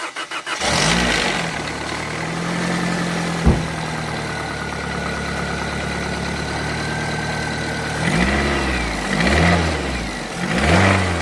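A car engine cranks briefly and catches, idles, and is then revved three times near the end, with one sharp knock a few seconds in. The engine has a rod knock that the owner hears getting worse even with a new 20-over rod bearing fitted.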